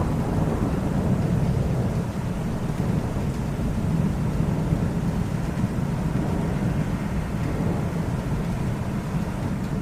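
Rolling thunder: a long, continuous low rumble that eases slightly after about two seconds, with no rain.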